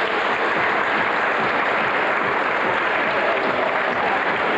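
Audience applauding steadily, a dense continuous clatter of many hands.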